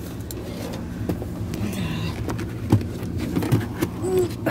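Car engine idling with a steady low hum, with scattered knocks and clicks of handling close to the microphone.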